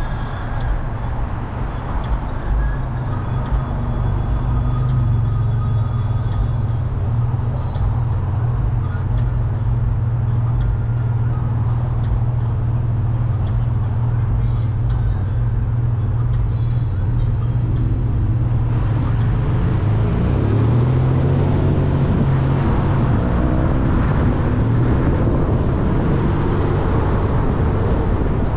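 Car driving on a city road: a steady low engine and road rumble, joined about two-thirds of the way in by louder tyre and wind noise that carries on to the end.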